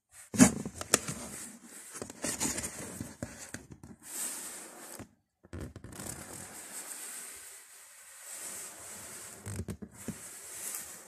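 Packaging and items being handled: rustling, scraping and tearing-like noises, with a sharp knock about half a second in as the loudest moment and a brief pause about five seconds in.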